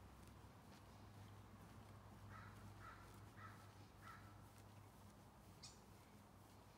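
Faint bird calls in near quiet: a run of four short calls about half a second apart, a little over two seconds in.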